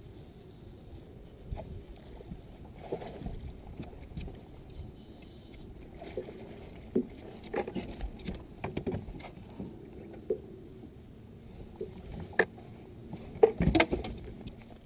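Scattered knocks and thumps on a bass boat's deck as a hooked bass is brought aboard and handled, the loudest cluster coming near the end.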